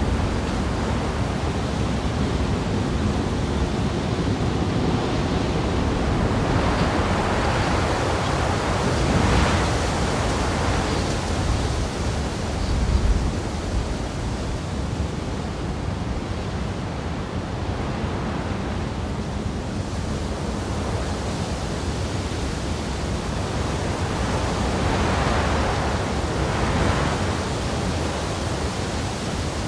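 Wind blowing close by as a steady, deep rushing noise, swelling into stronger gusts about a third of the way in and again near the end.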